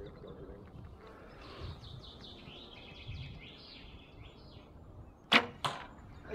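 A custom Redman recurve bow is shot: two sharp snaps close together a little over five seconds in, the string's release and the arrow, with another sharp knock about a second later, as the arrow strikes.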